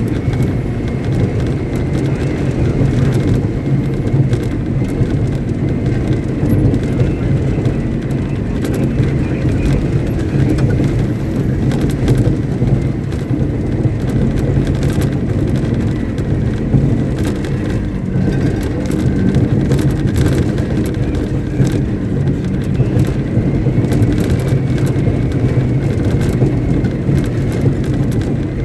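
Caterpillar 777D haul truck's V8 diesel engine running steadily and loudly, holding an even speed.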